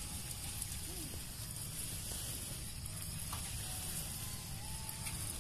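Water showering from a metal watering can's rose onto leafy tobacco seedlings, a steady spraying patter.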